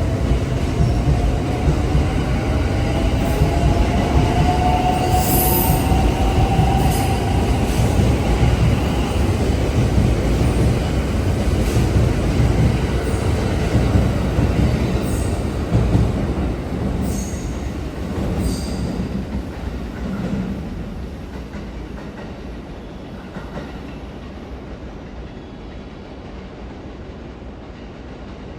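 Limited express electric train pulling out of the platform, its motor whine rising slowly in pitch as it gathers speed over a heavy rumble. Wheels click over the rail joints, then the sound fades steadily as the train draws away.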